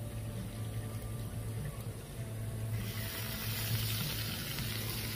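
Fresh green beans sizzling on a hot Blackstone flat-top griddle, a steady hiss over a low hum, with the hiss growing louder about three seconds in.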